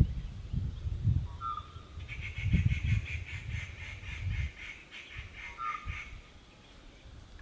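Birds calling in forest: a fast run of pulsed chattering notes, about seven a second, for several seconds in the middle, and a short two-note call heard twice. Under them are low rumbling thumps on the microphone, loudest in the first half.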